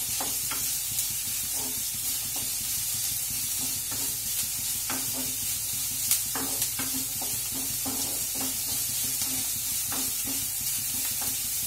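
Finely chopped onions frying in hot oil in a nonstick kadai, with a steady sizzle as their moisture cooks off. A wooden spatula stirs and scrapes them in short, irregular strokes.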